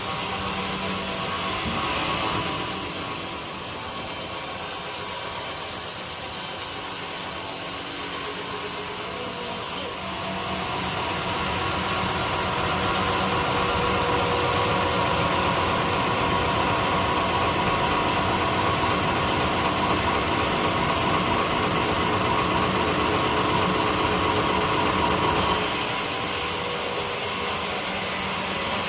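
A power tool running on wood without a break. Its sound drops suddenly about ten seconds in, then climbs back and runs steadily again.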